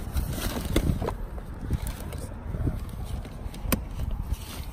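Plastic infant car seat carrier being handled, its handle moved: a few clicks and knocks in the first second, then one sharper click a little before the end, over a low rumble.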